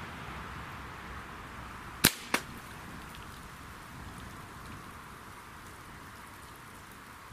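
A single shot from a .177 Ruger Blackhawk break-barrel air rifle firing a pellet through a row of drink cans: a sharp crack about two seconds in, then a second, weaker crack about a third of a second later, over faint steady outdoor background noise.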